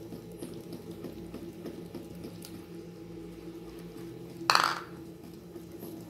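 Wooden spoon stirring thick cake batter in a plastic bowl: soft scraping and small taps over a steady low hum, with one loud knock or clatter about four and a half seconds in.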